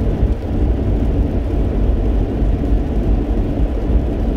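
Steady, low road noise of a car driving on a wet highway, heard from inside the cabin: tyres and engine.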